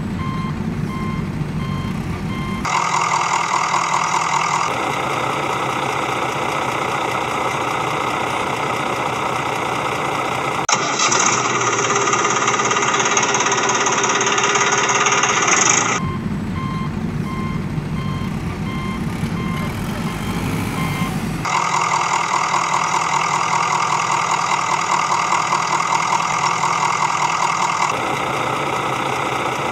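Heavy vehicle engine running, made up of spliced clips that switch abruptly every few seconds. In some stretches a repeating reversing beep sounds over it.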